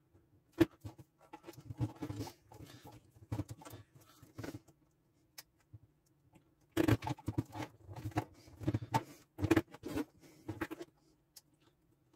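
Small diagonal cutters snipping and tearing the plastic outer jacket of a heavy 14 AWG power cord, played back at triple speed: a fast run of clicks and crunches. There is a short pause about two-thirds of the way in, and the busiest stretch comes after it.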